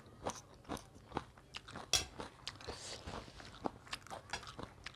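Crunching and chewing of a mouthful of buff chowmein: a run of short crisp crunches, the sharpest about two seconds in.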